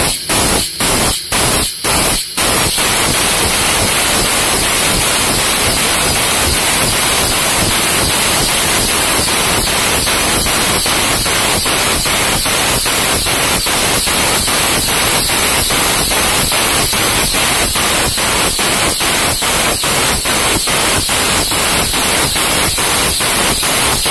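Powered hydraulic pump driving truck bottle jacks, running with a loud hissing rush and a rapid pulse of pump strokes. For the first couple of seconds the rush is cut by short gaps about twice a second, then it runs on without a break.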